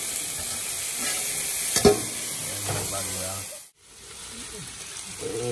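Chicken and vegetables sizzling on a Blackstone flat-top griddle, with a spatula and wooden spoon stirring and scraping, and one sharp metal clink about two seconds in as a steel dome lid is handled over the food. The sound cuts out abruptly near the end, then the sizzle comes back quieter.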